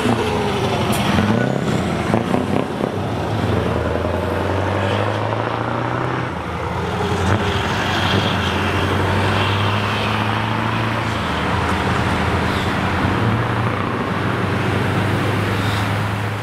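Scania V8 truck engine with an open exhaust running as the truck drives by: a deep, steady exhaust note, with the pitch shifting and some rough pulses in the first few seconds.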